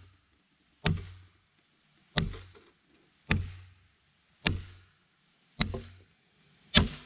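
Hammer blows at a steady pace, six sharp strikes a little over a second apart, each with a low thud, typical of driving a long bolt through a freshly augered hole in bridge timbers.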